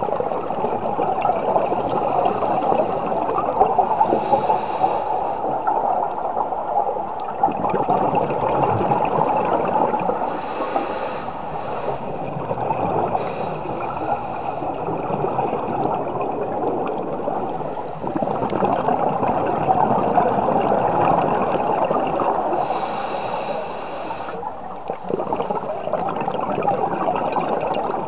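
Underwater sound picked up through a dive camera's housing: a steady rush and gurgle of water and bubbles. A brighter bubbling swell rises over it for a second or two a few times.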